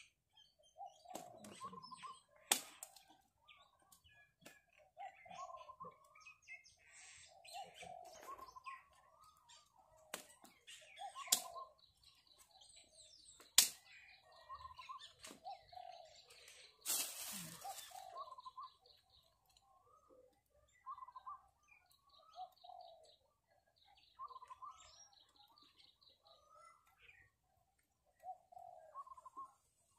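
A dove cooing over and over, a low two-note call every second or two, with small birds chirping. A few sharp clicks and a short burst of rustling a little past halfway come from plastic sheeting being clipped onto a PVC pipe frame.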